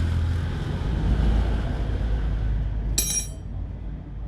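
A loud, low motor rumble, with a sharp ringing metallic clink about three seconds in.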